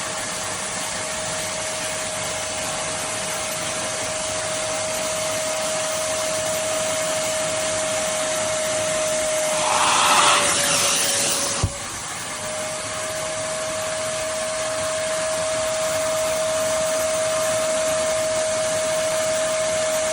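Kärcher WD 2 Plus wet and dry vacuum cleaner running, a steady rush of air with a high motor whine. About ten seconds in there is a louder hissing surge while the whine dips slightly in pitch, then a sharp click, after which the steady running resumes.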